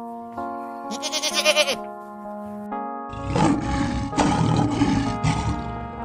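A goat bleating once, a wavering cry of just over a second, about half a second in. From about three seconds in, a lion roaring, a long rough rumble that fades near the end, over background music.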